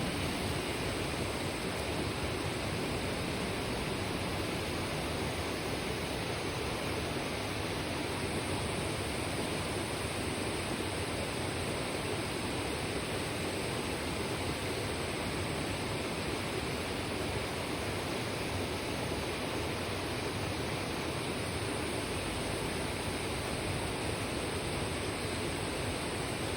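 Shallow mountain river running over rocks, a steady rushing babble of water.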